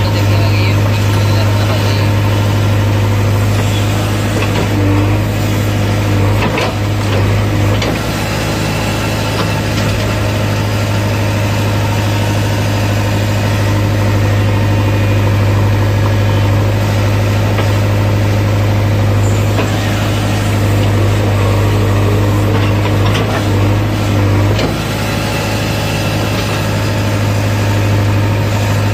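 JCB 3DX backhoe loader's diesel engine running at a steady speed, heard from the operator's cab, with a few clunks as the backhoe bucket digs into soil.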